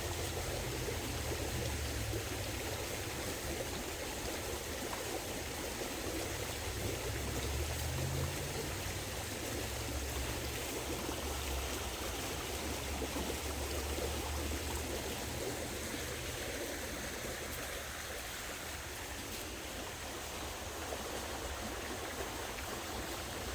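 Creek running fast and high, swollen after rain: a steady rush of flowing water.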